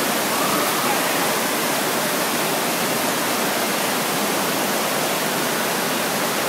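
Steady rush of running and falling water in an indoor water park, from the lazy river and its water features, with no distinct splashes or events.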